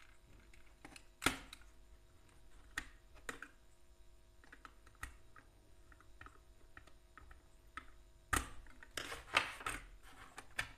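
Scattered small clicks and knocks of a plastic electrical switch board being handled while a wire is fitted and a brass terminal screw is tightened with a screwdriver, with a denser run of knocks and rattles near the end.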